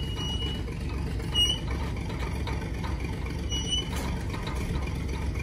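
Crane engine running steadily under load as it hoists equipment out of the hatch, a constant low rumble, with a few short high squeaks over it.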